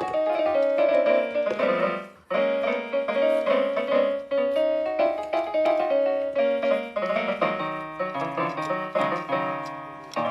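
Piano music, a melody over chords, with a short break about two seconds in.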